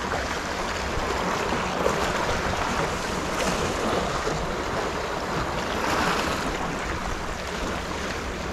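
Sea waves washing and splashing against shoreline rocks, with wind rumbling on the microphone.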